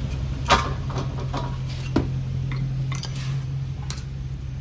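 Metal tools clinking against the brake rotor and hub as a bar is wedged in to stop the axle turning: a few sharp clinks, the loudest about half a second in and another near two seconds, with lighter ticks between, over a steady low hum.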